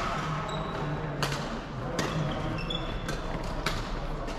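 Badminton rackets striking shuttlecocks, several sharp cracks about a second apart ringing in a large echoing hall, with brief high shoe squeaks on the wooden court.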